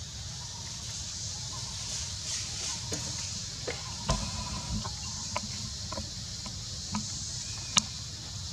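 Outdoor ambience of a steady high hiss over a low rumble, with scattered small clicks and crackles of dry leaf litter shifting under the monkeys. The sharpest click comes near the end.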